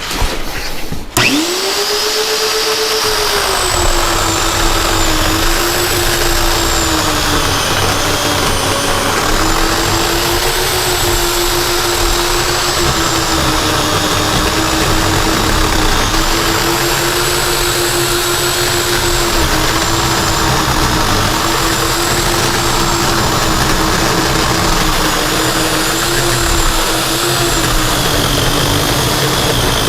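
Portland 14-inch 9-amp corded electric chainsaw starting up about a second in and then cutting continuously through a tough log. The motor's pitch sags and recovers again and again as the chain bogs down under load.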